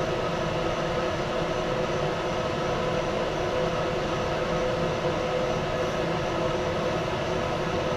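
A fan running with a steady, unchanging whir, with a few steady tones in it.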